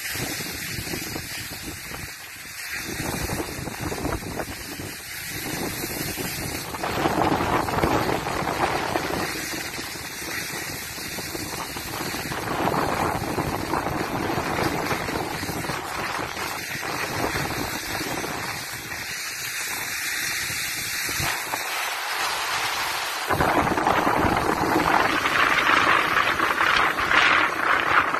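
Wind rushing over a moving phone microphone and skis hissing and scraping over packed snow while skiing downhill. It swells and fades in waves and is loudest and harshest in the last few seconds.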